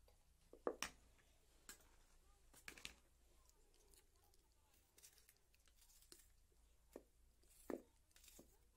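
Kitchen knife slicing through tomatoes held in the hand, with a few faint sharp taps as pieces drop into a plastic bowl.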